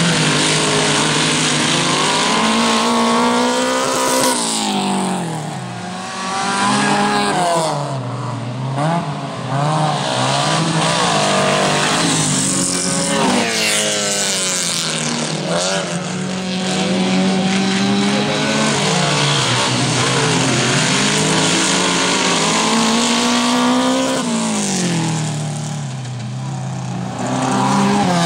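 2000cc stock car cross race cars' engines revving hard and easing off over and over as they race through the turns, the pitch rising and falling every few seconds.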